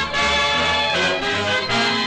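Orchestral score with brass and a pulsing bass line, changing chords about every half second.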